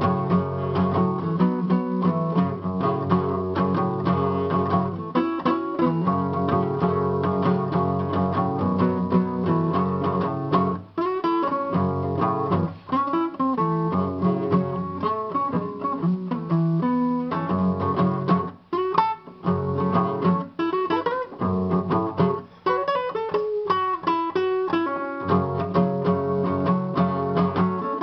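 Guitar music, strummed and picked, with a few brief breaks.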